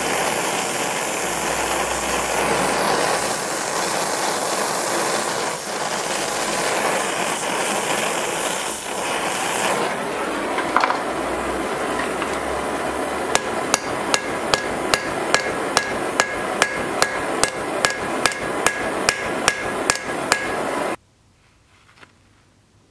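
Steel being forged: hammer blows on the work at an anvil, about two a second in a steady rhythm, each with a short metallic ring. Under them is a loud, steady rushing noise. The blows begin a little past halfway, and everything cuts off suddenly near the end.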